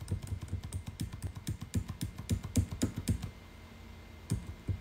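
Computer keyboard being typed on: a quick, irregular run of key clicks for about three seconds, then a pause and a couple more taps near the end.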